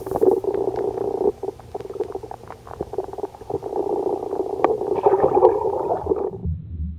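Underwater sound picked up by a submerged camera: muffled water noise with a steady hum and many small clicks and knocks. A little after six seconds it changes abruptly to a low churning rumble.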